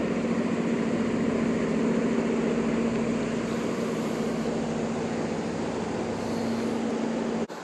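Steady engine-like hum at an unchanging pitch over a constant hiss, cutting off abruptly near the end.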